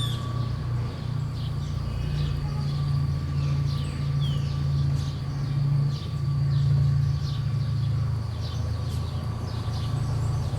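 Town-square street ambience: a steady low rumble of traffic or a nearby idling engine, with many small birds chirping throughout and a faint steady whine.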